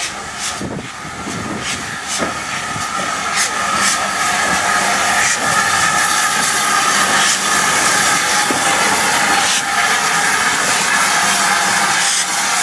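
Double-headed steam train of GWR 5100 class Prairie tank No. 4141 and LMS Black Five No. 45379 coming past slowly, hissing steam loudly. A few sharp clanks early on, then the hiss builds and stays loud as the locomotives draw level.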